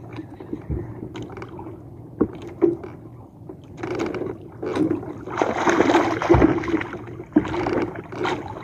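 A handline being hauled in hand over hand from a small outrigger boat, with a few dull knocks on the hull. About five seconds in, water splashes for a second or two as the hooked skipjack tuna (gulyasan) is brought up beside the boat. A steady low hum runs underneath.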